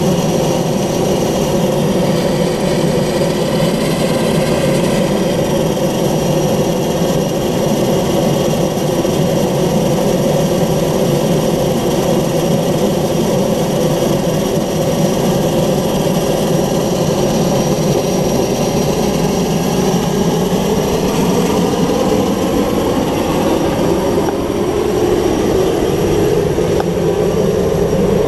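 Air Tractor AT-502XP's Pratt & Whitney PT6A turboprop running steadily on the ground, a loud engine sound with a high turbine whine. In the last several seconds some of its tones rise gradually in pitch.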